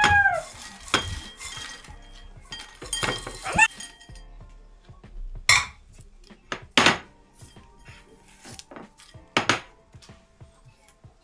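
A few separate clinks and knocks of dishes or cutlery being handled, over faint background music.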